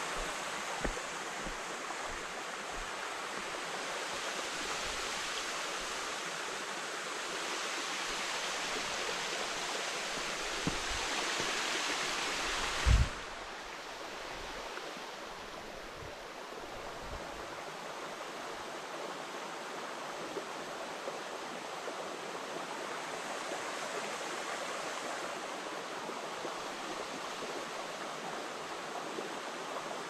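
Shallow stream babbling over stones: a steady rush of flowing water. About thirteen seconds in there is a single loud thump, after which the water sounds a little softer.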